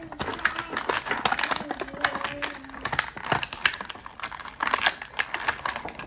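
Rapid, irregular clicking and tapping of hard plastic toy figures and playset pieces being handled, with a brief faint voice about two seconds in.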